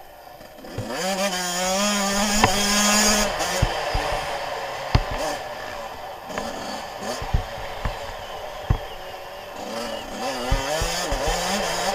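Suzuki RM85 two-stroke engine revving hard, its pitch climbing about a second in and easing off after about three seconds, then rising again near the end as the bike is ridden over dirt track, with short knocks from the bike over bumps.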